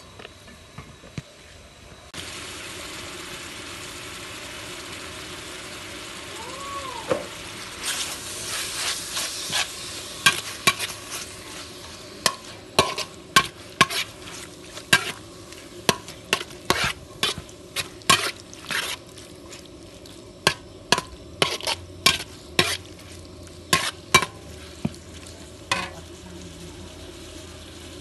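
Minced pork sizzling in hot oil in a wok, the sizzle starting suddenly about two seconds in. From about eight seconds on, a metal spatula scrapes and knocks against the wok again and again as the meat is stirred.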